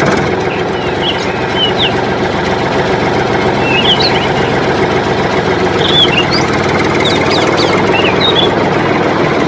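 Tractor engine running steadily, with birds chirping over it.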